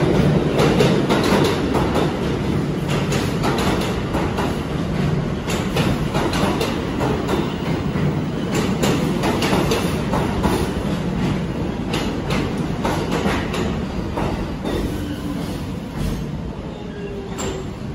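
R46 subway train pulling into an underground station: a steady rumble with wheels clicking over rail joints, slowly getting quieter as the train slows.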